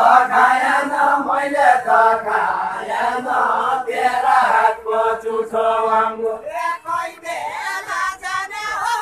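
Unaccompanied Deuda folk singing: voices chant a verse together in long, held phrases. About six and a half seconds in, it breaks into shorter, speech-like phrases.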